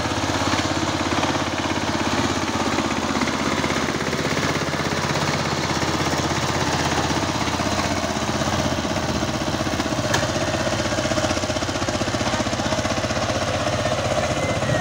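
Power tiller engine running steadily, with a rapid, even firing beat.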